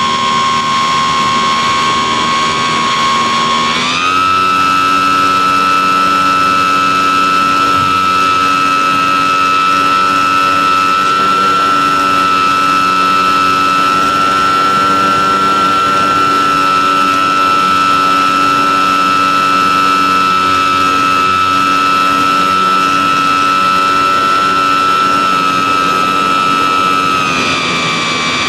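E-flite Apprentice S 15e's electric motor and propeller whining steadily in flight, heard from a camera on board the plane. The whine steps up in pitch about four seconds in as the motor speeds up, holds, and drops back near the end.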